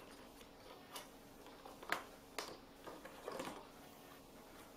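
Faint clicks and rustling of a small cardboard box and its packing being handled while a corded computer mouse is pulled out of it, with a few sharper clicks about one, two and two and a half seconds in.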